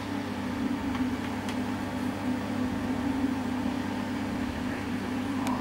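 Steady low mechanical hum over a light hiss, with two faint ticks, one about a second and a half in and one near the end.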